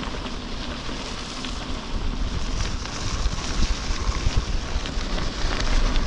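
Wind rushing over the microphone of a moving bicycle, with the rumble and small ticks of knobby tyres rolling over a gravel road. It gets louder about two seconds in.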